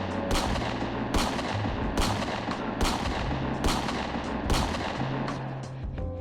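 Background music in a loud, heavily distorted passage: a dense wall of noise with a heavy drum hit about every second over a changing bass line.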